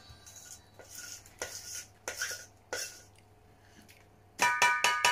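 Spoon scraping cake batter out of a stainless-steel mixing bowl, a handful of short scrapes. Near the end the spoon is rapped against a metal rim to knock the batter off: a fast run of ringing clanks, about five a second and the loudest sound.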